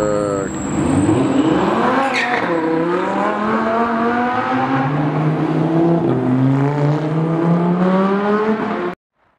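Lamborghini Huracán's V10 accelerating hard. Its pitch climbs steadily through the gears, with upshifts about two and six seconds in and a sharp crack at the first shift. It cuts off suddenly near the end.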